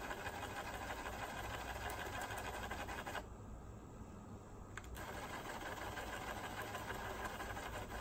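Vintage Pioneer boombox cassette deck mechanism whirring as it winds the tape in song-search mode. The whir stops about three seconds in, a click comes just before it starts again about five seconds in, and it runs on steadily.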